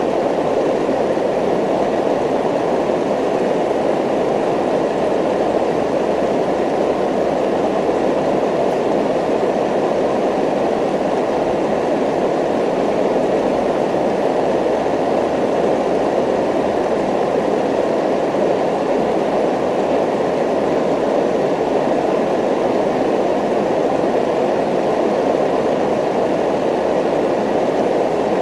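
Steady, unchanging rushing noise, heaviest in the lower middle of the range, with no rhythm or swells: the masking noise bed of a subliminal affirmation track.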